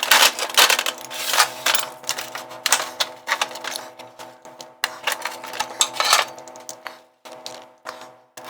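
Rapid, irregular clicking and clattering, thinning out near the end, over a steady hum.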